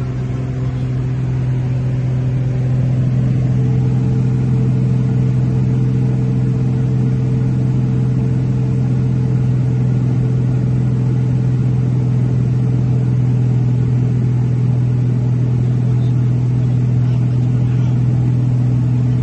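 Light aircraft's engine and propeller running steadily, heard from inside the cabin as a loud, even low drone. It grows slightly louder a couple of seconds in.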